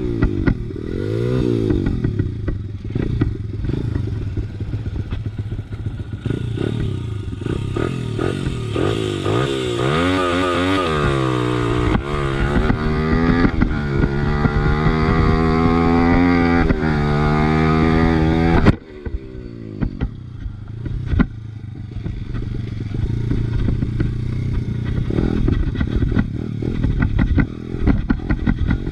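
Honda XR100R's big-bored single-cylinder four-stroke engine revving up and down as the pit bike is ridden hard, with clattering knocks throughout. About 19 s in the engine note drops suddenly to a lower, quieter running.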